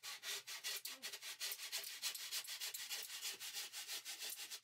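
Handsaw cutting through a polyurethane foam taxidermy mannequin: quick, even back-and-forth strokes, several a second, stopping at the end.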